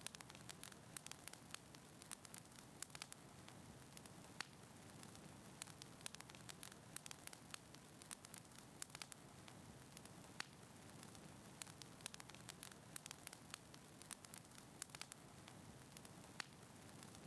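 Quiet crackling fire in a fireplace: frequent irregular pops and snaps over a soft steady hiss.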